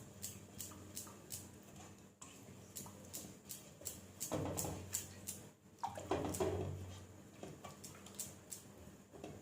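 Spoon or spatula stirring a thin milk-and-custard mixture in a pan on the stove, with light irregular clicks and scrapes against the pan over a faint steady hum.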